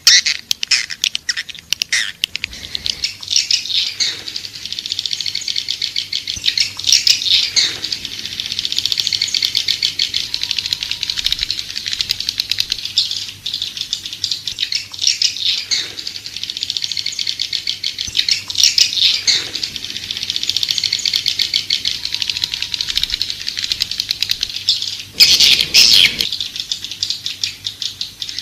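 Edible-nest swiftlets chattering: dense, fast clicking trills that swell and fade every few seconds, with a louder burst of clicks near the end. It is a swiftlet lure call of the kind played to draw swiftlets into a nesting house.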